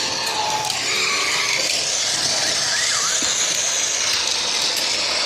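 A loud, steady rushing noise with no clear rhythm or pitch.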